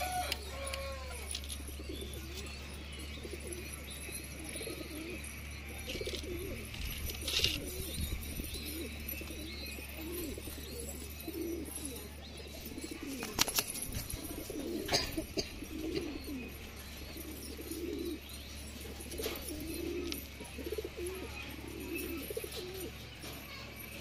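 Domestic pigeon courtship cooing: low, rolling coos repeating about once a second. A few sharp clicks stand out above them, over a steady low hum.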